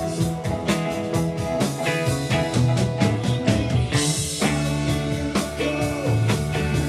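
Rock band playing an instrumental passage on guitars, bass, keyboards and drum kit, with a cymbal crash about four seconds in.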